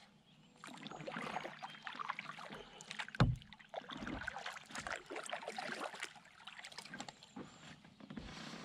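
Kayak paddle strokes: the blades dipping and splashing in the water, with drips running off them, and one dull knock about three seconds in.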